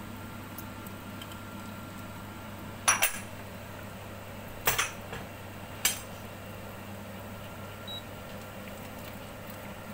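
Sharp metallic clinks of kitchen utensils against a wok or dish in three short clusters, about three, four and a half and six seconds in, over a steady low hum.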